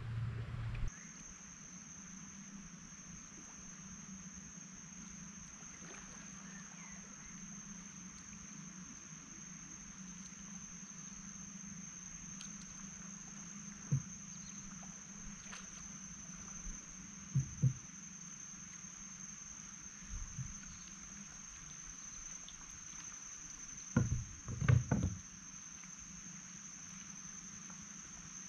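A steady, high-pitched insect drone from the riverside vegetation. Over it come a few dull knocks from the wooden boat: one about halfway, a quick pair soon after, and a short cluster near the end.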